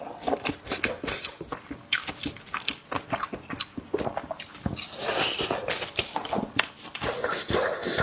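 A person chewing and biting food close to the microphone, with many short wet smacking clicks and two longer, denser bouts of chewing about five seconds in and near the end.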